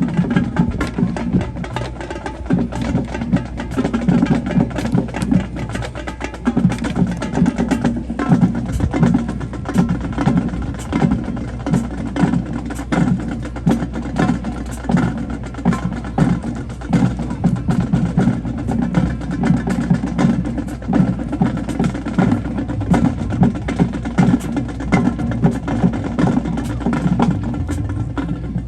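Marching band drumline playing, a dense run of quick drum strokes with no break.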